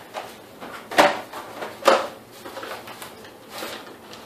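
Handling noise as gloved hands pick up a cardboard box of engine bearings: two sharp knocks about a second apart, then fainter rustling.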